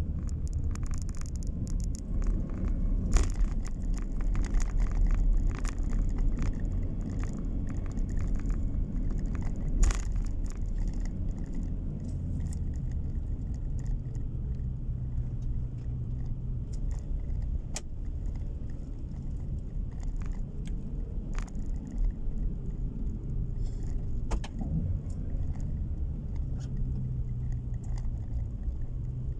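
Car cabin noise while driving: a steady low rumble of engine and tyres on asphalt, with scattered small clicks and rattles that are busiest in the first ten seconds or so. A steadier low engine hum comes through from about halfway.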